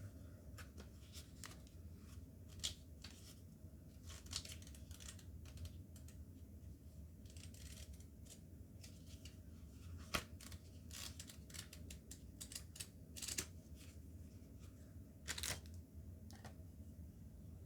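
Faint handling of a watch box and its packaging: scattered light clicks and short rustles, with a few sharper clicks, the loudest about ten seconds in, over a low steady hum.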